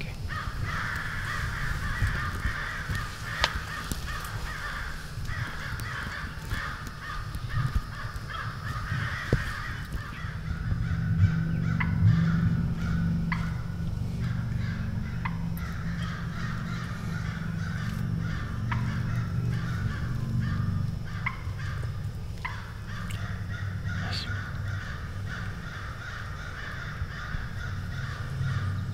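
Crows cawing repeatedly in the woods over a steady outdoor background; a low droning hum grows louder about ten seconds in.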